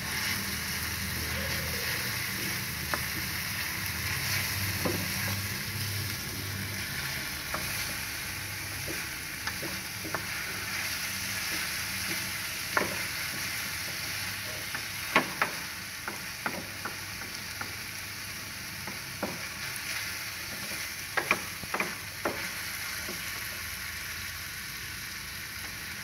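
Chopped onion and ginger-garlic paste sizzling steadily in mustard oil in a steel frying pan, stirred with a wooden spatula that scrapes and knocks against the pan now and then. The sharpest knocks come about halfway through and again a few seconds later.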